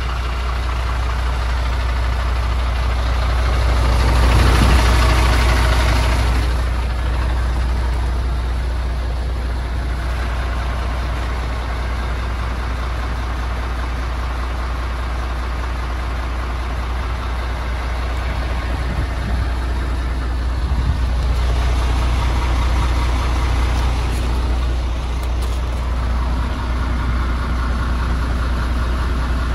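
MAN TGS 24.470 truck's 12.4-litre straight-six diesel idling steadily, with a louder rush of noise briefly about four seconds in and again around twenty-one seconds in.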